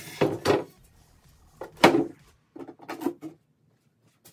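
Thin plywood panel being handled and laid onto a wooden frame: a few short wooden knocks, the loudest about two seconds in.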